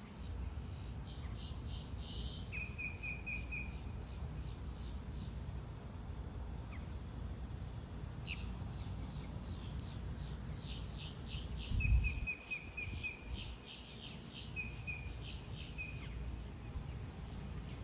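Birds chirping outdoors, with a short rapid even trill repeated several times, over a steady low rumble and one dull thump about twelve seconds in.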